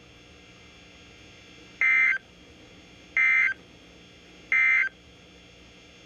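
NOAA Weather Radio EAS end-of-message signal: three short bursts of SAME digital data tones, about a second and a half apart, played through a weather alert radio. The three bursts mark the end of an alert message.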